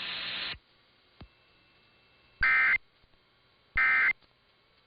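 Emergency Alert System end-of-message code: two short digital data bursts, about a second apart, made of a rapid warble between two tones, which signal the end of the alert. Before them, radio hiss cuts off about half a second in, followed by a single click.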